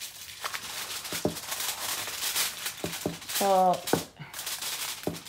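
Aluminium foil crinkling and crackling as hands press and crimp it down over the rim of a baking dish, a dense run of rustling for about three seconds, then a few scattered crinkles near the end.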